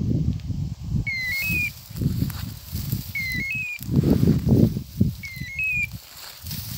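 Dry grass and tall weed stalks rustling and crunching as someone walks through them. A short stepped chirp repeats about every two seconds over the rustling.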